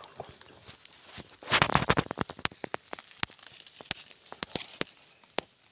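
Dry leaf litter rustling and crackling around a downed red junglefowl: a loud scuffle about a second and a half in, then scattered sharp snaps and crackles.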